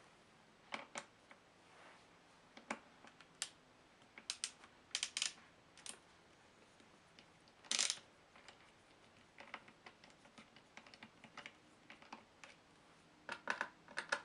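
Irregular light clicks and taps of small parts being handled on a hard surface while screws are taken out of a laptop's bottom case and set down. Some come in quick little clusters, with one louder clack about eight seconds in.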